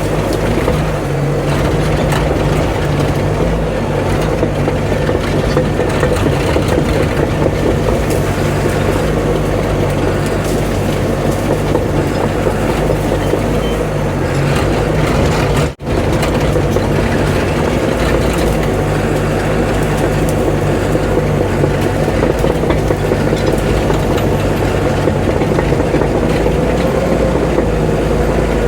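CAT D5 bulldozer's diesel engine running steadily under working load while clearing and cutting, with a momentary dropout about sixteen seconds in.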